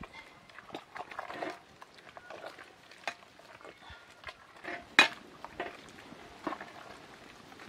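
A metal ladle stirring tomatoes cooking down into paste in a large metal pot, with scattered clinks and scrapes against the pot. One sharp, loud click about five seconds in.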